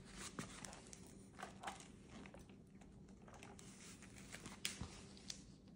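Faint scattered clicks and light ticks, the sharpest a single click near the end, over a faint steady low hum.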